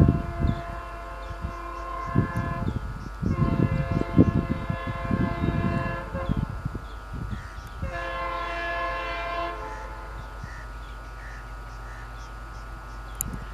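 WDP-4B diesel-electric locomotive sounding its multi-tone horn in three long blasts as the express approaches at speed, the last blast dying away into a fainter held tone, over an uneven low rumble.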